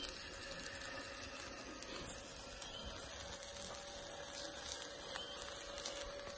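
Faint sizzling and crackling of pork fat dripping onto hot charcoal under a turning spit roast, with a faint steady hum underneath.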